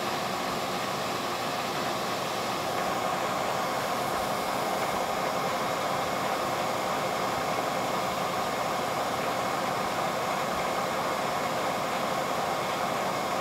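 Vertical milling machine running steadily with its spindle turning, a constant hum and whir with no pauses.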